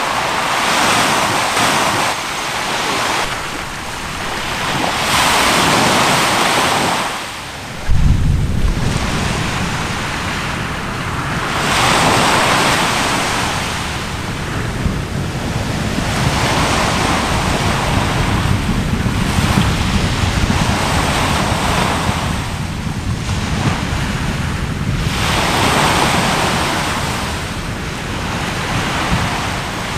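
Waves washing onto the shore, a hiss that swells and fades every three to four seconds. About eight seconds in, a sudden low thud starts a deep rumble that goes on under the surf.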